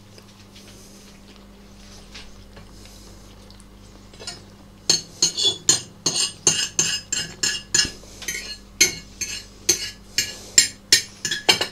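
Metal cutlery clinking and scraping against a plate in a quick run of sharp strokes, about three a second, starting about five seconds in.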